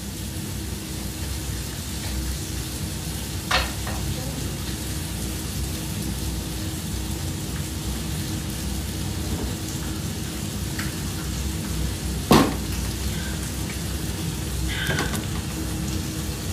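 Food frying in a pan on a gas stove, a steady sizzle. Two sharp knocks cut through it, a small one a few seconds in and a louder one about twelve seconds in.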